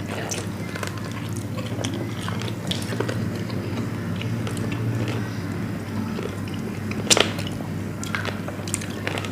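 Close-miked biting and chewing of spicy grilled chicken wings and drumsticks: scattered small wet clicks and crunches, with one sharper click about seven seconds in, over a steady low hum.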